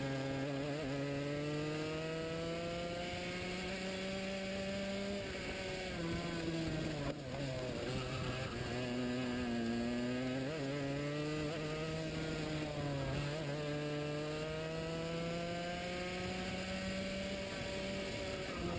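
Racing kart engine running under race load, heard onboard. The revs drop a third of the way in, build back up, dip briefly past the two-thirds mark and climb again as the kart slows for corners and accelerates out of them.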